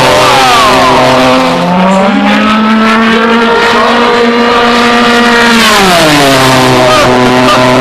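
Radio-controlled model turbine jet flying past, loud, its pitch sliding down at the start, rising again about two seconds in, then sliding down once more around six seconds in as it passes.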